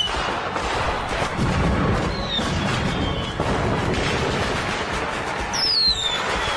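A fireworks display crackling and banging in a rapid volley, with a few whistles sliding down in pitch, heard over music.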